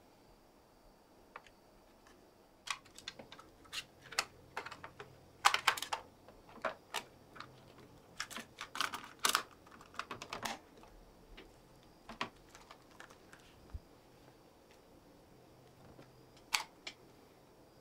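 Hands handling a plastic cassette tape, its case and small desk gear: irregular clusters of light clicks and taps, busiest through the middle, then a few sparse clicks.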